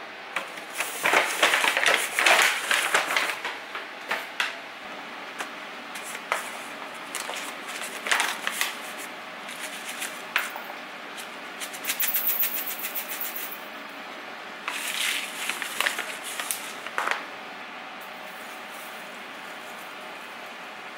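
Handling sounds while making tea. A paper bag rustles and crinkles in the first few seconds. About twelve seconds in, a quick patter of fine ticks is heard as dry loose tea leaves are poured into a stainless steel infuser, followed by the crinkle of the paper tea packet.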